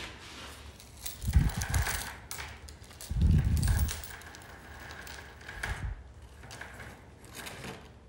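A metal chain being pulled and clinking against rusty steel beams, amid rattles and knocks, with three dull low thumps: one about a second in, one around three seconds and a shorter one near six seconds.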